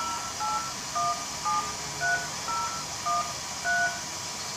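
DTMF touch-tone beeps keyed from a two-way radio with the push-to-talk held, dialing a phone number through a repeater's telephone interconnect. About eight short beeps, roughly two a second, over a steady hiss.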